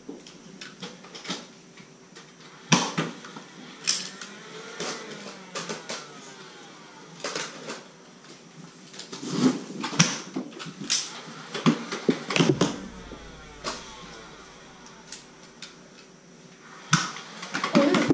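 Scattered, irregular sharp clicks and knocks of a Nerf dart fight: foam-dart blasters firing and darts striking walls and floor.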